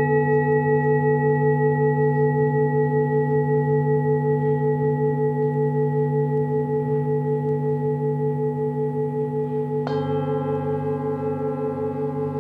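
Metal singing bowls ringing with a slow wavering beat over a low steady drone; a second bowl is struck about ten seconds in, adding a fresh cluster of higher ringing tones.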